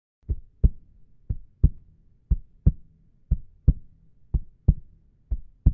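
Heartbeat sound effect: a double low thump, lub-dub, repeating about once a second.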